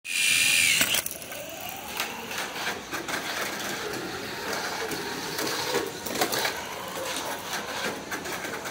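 Tamiya Mini 4WD car's small electric motor whining loudly while the car is held at the start gate, then released a little under a second in. It then runs around the plastic track with a rapid clatter of rollers and knocks against the lane walls, its motor whine rising and falling in the background.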